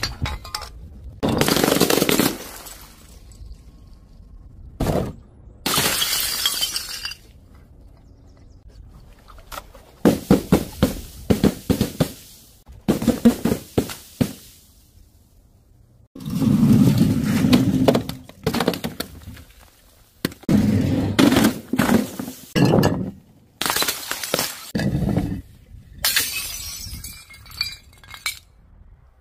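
A series of objects dropped from a height smashing on a hard floor: glass bottles and jars shattering, in separate crashes and clatters every few seconds, with a quick run of short smashes midway.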